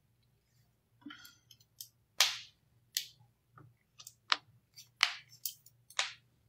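A dozen or so irregular, sharp clicks and taps from hands handling something close to the microphone, starting about a second in.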